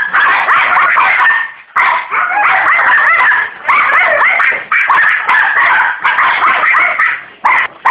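French bulldog vocalizing loudly and almost without pause, a stream of high yips and whines that slide up and down in pitch, broken by a few short pauses.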